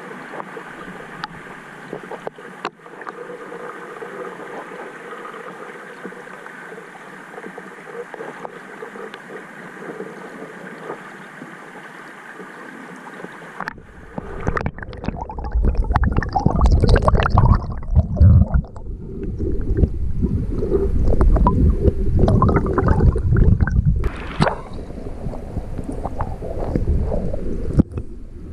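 Flowing stream water heard through an underwater GoPro housing: a steady hiss for the first half, then, about halfway through, a louder, uneven low rumble of gurgling water with knocks against the housing.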